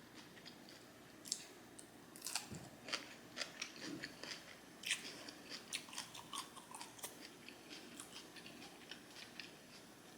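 Quiet, close-up chewing of crunchy salad, likely the kale crunch salad: many short, irregular crisp crunches and mouth clicks that begin about two seconds in.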